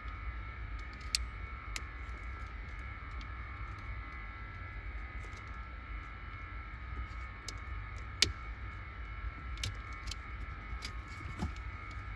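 A few short, sharp plastic clicks from a car wiring-harness connector being unclipped and handled. The strongest click comes about eight seconds in, over a faint steady hum and low rumble.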